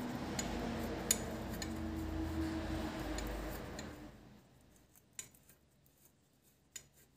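Screwdriver turning a bottle-cage screw into a bicycle frame's bottle boss: a steady faint noise with light metallic clicks for about four seconds, then only a few scattered clicks.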